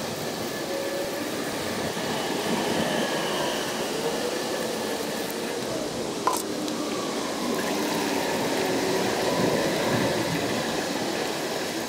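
Oily bilge water poured from a container into a funnel, splashing and gurgling, with a single sharp knock about six seconds in.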